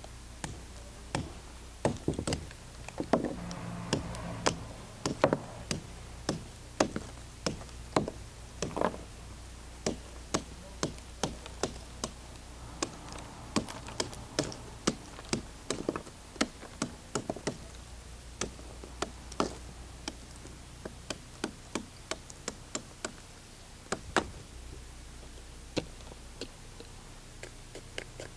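Small hammer striking an MRX automatic knife used as an ice pick, driving it into a block of ice and chipping it apart. A long, irregular series of sharp knocks and taps, some louder than others, with lighter clicks near the end.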